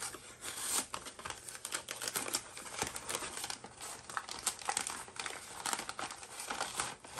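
A white packaging bag crinkling and rustling as it is handled and slit open with a small knife: a continuous run of irregular crackles with some tearing.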